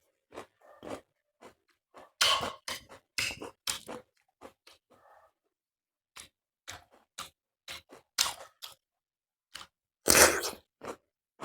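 Close-up chewing of a piece of cucumber: irregular crunches and bites coming in bunches, the loudest crunch about ten seconds in.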